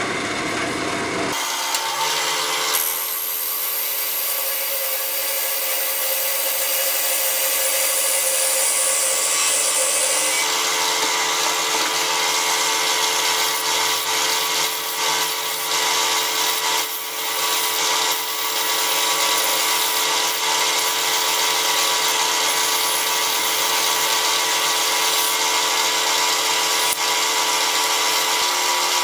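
Wood lathe running steadily with a gouge cutting and rounding over the end of a spinning apple-wood blank: a constant motor hum under the hiss and scrape of the cut.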